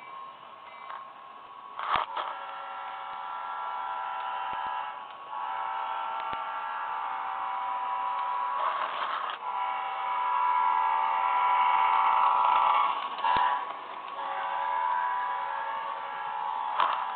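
HO-scale model train running on its track: a steady, high-pitched whine from the locomotive's motor and gears, getting louder as it passes close by, with a few sharp clicks.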